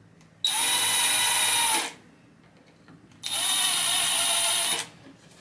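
Power drill running a small bit through the drilling template into a cabinet drawer front, drilling pilot holes for a pull handle: two steady whines, each about a second and a half long.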